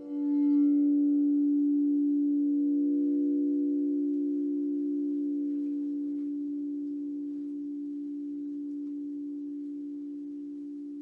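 Crystal singing bowls ringing a sustained low tone. It swells in the first second, then fades slowly, with a few fainter higher bowl tones held above it.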